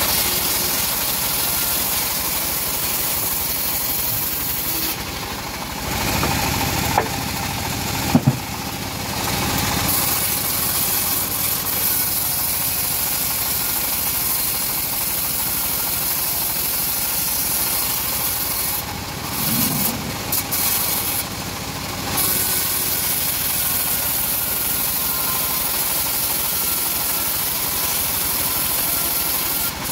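Engine-driven homemade bandsaw mill running steadily while its band blade saws lengthwise through a teak log. Two sharp knocks sound about seven and eight seconds in.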